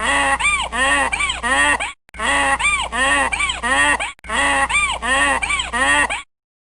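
A bird call: a run of about four loud calls, each rising then falling in pitch, played three times over with short breaks between, stopping suddenly a little after six seconds.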